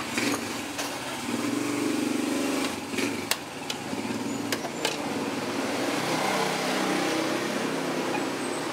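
A small engine running steadily in the background, its hum swelling about a second in and again from about six seconds in. A few sharp clicks of plastic parts being handled come about three to five seconds in.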